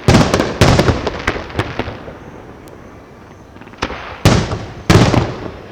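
Fireworks display: aerial shells bursting with loud booms, two in the first second and two more about four to five seconds in, each followed by a trail of crackling pops.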